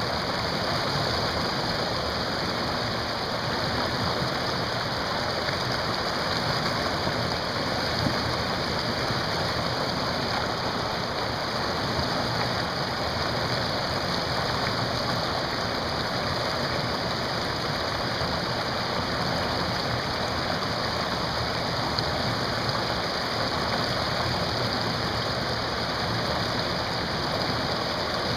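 Whitewater rushing steadily through a river wave, a constant even roar of churning water with a river flow of 630 cfs.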